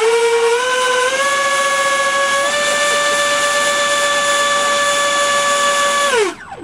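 GWS F-15 model jet's electric ducted fan running up to high throttle, a loud, high whine that steps up in pitch a few times in the first two and a half seconds, holds steady, then drops in pitch and cuts off about six seconds in.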